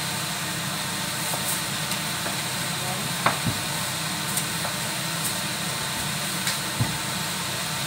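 Soy-sauce braise of chicken feet and pork simmering in a wok: a steady hiss with a few scattered bubble pops, the sharpest about three seconds in.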